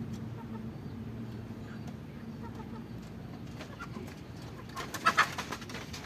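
Farmyard birds calling, with a brief loud call about five seconds in.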